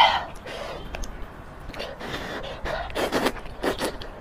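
Close-miked eating of spicy rice noodles: a loud mouth sound at the very start, then a few quick, wet slurps of noodles being sucked up from chopsticks in the second half.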